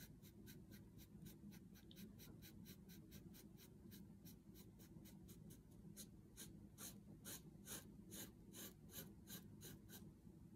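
Sharpie marker scribbling on paper in quick, faint back-and-forth strokes, about five a second, growing a little louder about halfway through.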